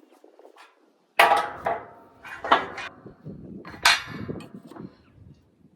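Hammer striking metal while working a disc harrow bearing: about five sharp, ringing blows at uneven intervals, the first about a second in, with a few lighter knocks between them.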